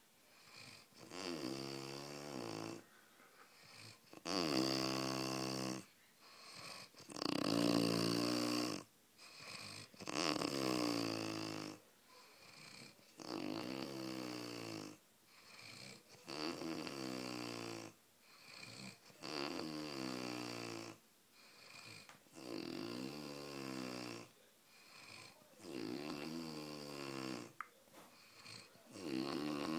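Snoring: a long pitched, wheezy snore every two to three seconds, the pitch of each bending up or down as it goes.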